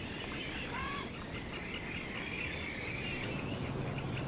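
Birds calling, a run of chirps and short warbling notes over steady outdoor noise, with a low hum coming in about three seconds in.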